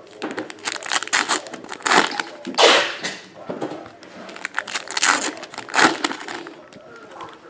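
Foil trading-card pack wrappers crinkling and tearing as packs are ripped open by hand, in a run of irregular crackling bursts, the loudest a little before 3 seconds in and again near 6 seconds.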